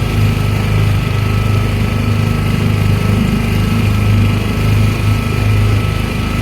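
A small boat engine running steadily at constant speed, an even low-pitched sound that does not change.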